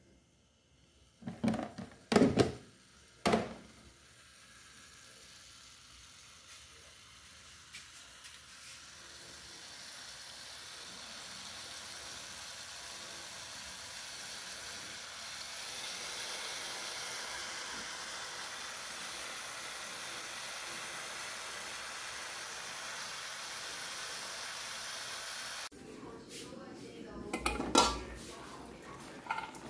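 Chicken pieces sizzling in an aluminium pot as it heats up, the hiss building slowly and then holding steady. A few knocks of the pot and chicken being handled come near the start, and near the end a lid clanks against the pot.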